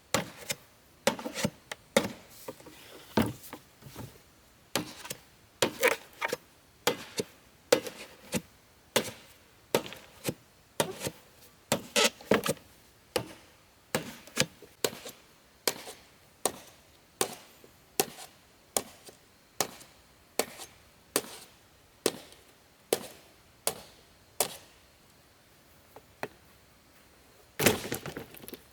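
Hammer blows on wood, steady at about one a second, stopping about three quarters of the way through; a louder knock or two comes near the end.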